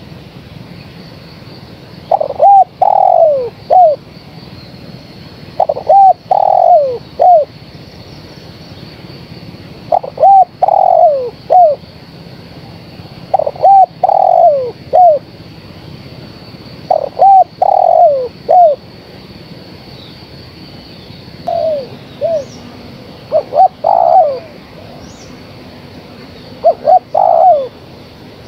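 Spotted dove cooing: repeated phrases of three or four falling coos, about one phrase every three to four seconds, turning more irregular near the end. The uploader presents it as a female calling to males.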